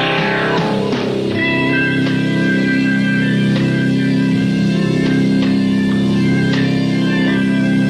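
Live rock band playing an instrumental passage: electric guitars hold long sustained notes over bass and drums, with no singing.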